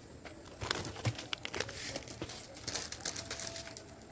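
Plastic packaging crinkling and rustling as a hand rummages among items in a cardboard box, a run of irregular crackles and light clicks.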